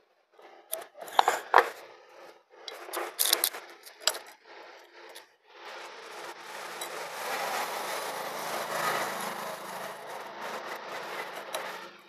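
Metal tools clinking and knocking against the motorcycle engine. From about five and a half seconds in there is a continuous rasping as a socket wrench with an extension works the camshaft sprocket bolt, loosening it to re-align the timing chain marks.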